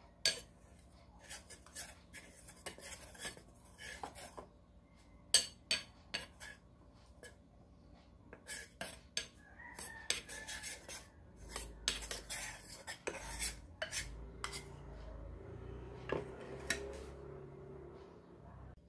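A ceramic soup spoon clinks and scrapes against a ceramic bowl in many quick, irregular taps while stirring cornstarch and water into a slurry.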